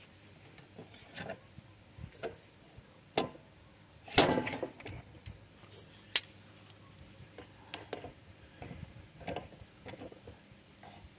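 Metal clinks and clatter from a Harbor Freight 5-pound slide hammer puller as it is handled on the puller jaws. The loudest sound is a short rattling clatter about four seconds in, with a sharp ringing clink a second before it and another two seconds after, and lighter clicks in between.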